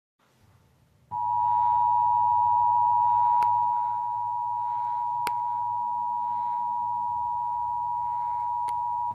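Emergency Alert System two-tone attention signal: two steady tones sounded together, held for about eight seconds from about a second in, then cut off suddenly, dipping slightly in level about four seconds in. A low hum and a few faint clicks lie underneath.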